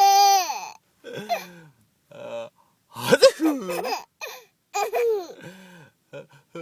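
A baby laughing in five separate bursts, the first a high squeal falling in pitch, with a run of short quick giggles near the end.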